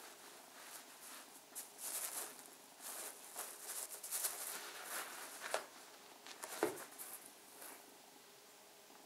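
A cat biting and pawing at a small valerian cushion on a carpet: irregular rustling and scuffing, busiest in the middle, with a sharper knock at about six and a half seconds, dying away near the end.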